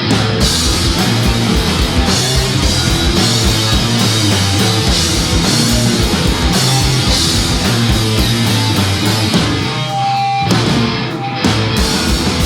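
Punk rock band playing live, an instrumental passage of electric guitar, bass and a steady drum beat with no vocals. About ten seconds in the band briefly drops back, then comes in again at full strength.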